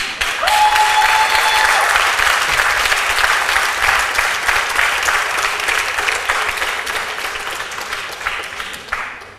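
Audience applauding: many hands clapping together, starting all at once and dying away near the end.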